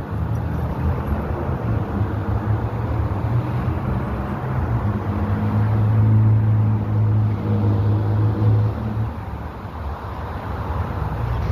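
A motor vehicle's engine running steadily with traffic noise, its low hum strongest from about five to nine seconds in.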